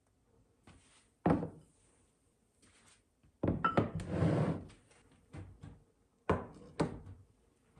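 Dishes and a round serving board being set down on a kitchen countertop. There is one sharp knock about a second in, a cluster of knocks and scraping around the middle, and two more knocks near the end.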